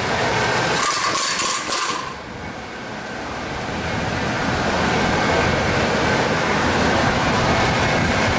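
A short high whine for the first two seconds, then steady mechanical rumble of shop machinery that swells over a few seconds and holds.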